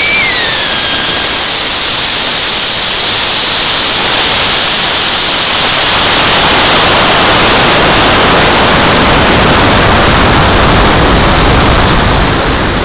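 Loud, steady rush of air over a high-power rocket's onboard camera during its climb after liftoff. A high whistle falls steadily in pitch through the second half.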